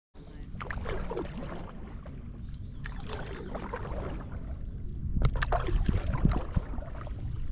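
Stand-up paddleboard paddle dipping and pulling through lake water: three strokes of splashing and dripping, about two to two and a half seconds apart, the last the loudest, over a steady low rumble.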